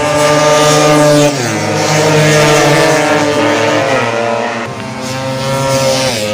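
Tuned two-stroke Vespa racing scooter engine running at high revs, its pitch held steady and stepping down about a second and a half in and again near the end.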